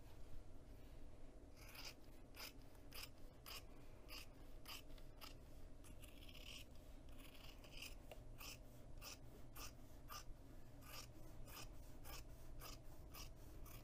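Quiet, repeated snips of fabric shears cutting through fabric quilted to foam interfacing, about two cuts a second, starting a second or so in.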